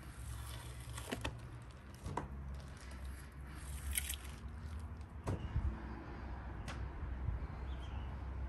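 Hands working a raw whole lamb carcass: soft wet squishes as fat and membrane are pulled from the body cavity, with several short sharp clicks scattered through.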